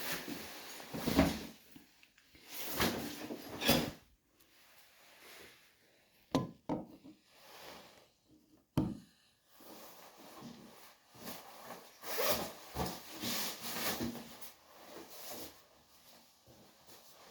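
Things being handled indoors: irregular rustling and rubbing, with a few knocks and sharp clicks like wooden drawers or doors being moved.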